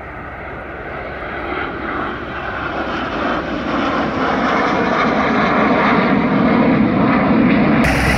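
Messerschmitt Me 262 replica jet flying past, its twin engines' noise growing steadily louder as it approaches. Just before the end the sound changes suddenly to a propeller plane's engine idling.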